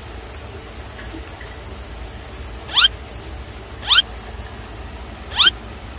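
Boston Terrier whining for food: three short, high squeaks, each rising in pitch, about a second apart in the second half.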